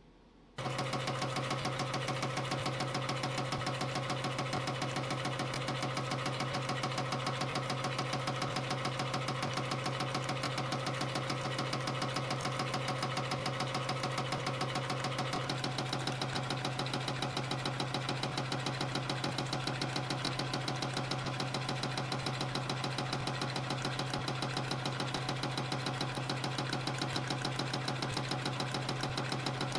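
CNC spring coiling machine forming 0.6 mm wire compression springs at about 420 a minute: a fast, even mechanical clatter over a steady hum, starting abruptly about half a second in.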